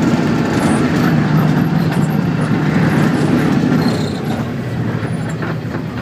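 Steady, loud rumbling engine and running noise of a vehicle, heard from inside its cabin.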